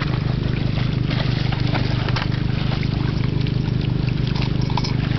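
A motor's steady low drone, with small splashes of water.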